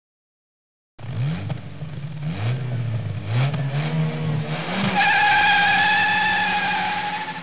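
Car engine sound effect starting about a second in: the engine revs up in several rising sweeps, then a long, high tyre squeal takes over about two-thirds of the way through.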